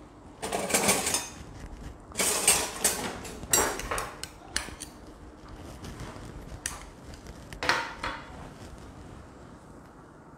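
Metal ladles and other kitchen utensils clinking and clattering together as they are picked up and handled, in several separate bursts of sharp rattles over the first eight seconds, then quieter.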